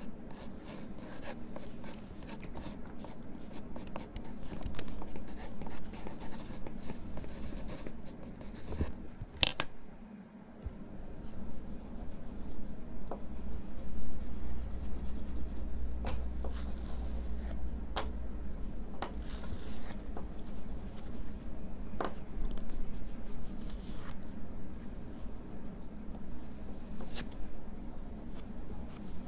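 Drawing strokes on paper: pencil and oil pastel scribbling, a dry scratching texture of many short strokes. There is a sharp click and a brief pause about nine to ten seconds in.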